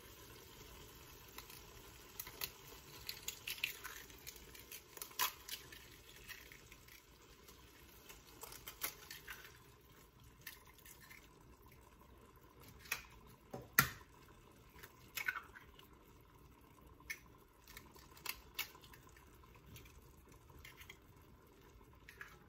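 Eggshells cracking and eggs dropping one after another into a sauce in a cast iron wok: scattered sharp taps and cracks, with soft wet drips.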